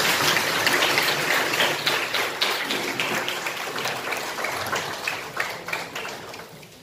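Audience applauding: a room full of people clapping, loudest at first and dying away gradually toward the end.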